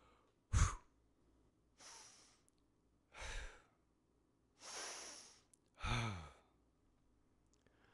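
A person breathing: five breaths in a row about a second apart, the last a voiced sigh that falls in pitch.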